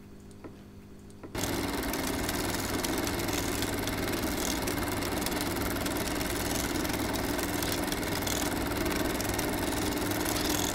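A steady, dense mechanical running noise over a low hum, like a motor or machine running. It starts suddenly about a second in and cuts off abruptly at the end.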